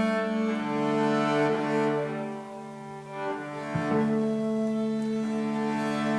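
Music of long held notes at several pitches sounding together, like a slow cello drone; the lower notes shift to a new pitch a little under four seconds in.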